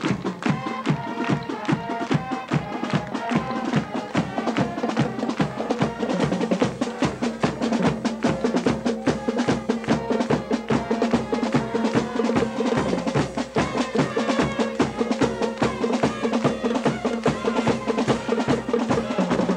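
Marching band playing an up-tempo tune, brass over a fast, steady drum beat.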